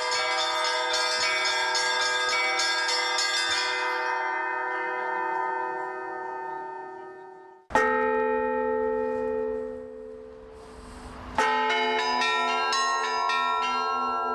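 Slavic church bell ringing (zvon): rapid strikes on small bells over the hum of larger bells. The ringing dies away, a new strike comes about 8 seconds in, and rapid ringing of many bells starts again about 11 seconds in.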